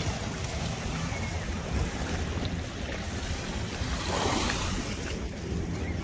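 Sea waves washing, with a louder rush of water about four seconds in. Wind rumbles on the microphone throughout.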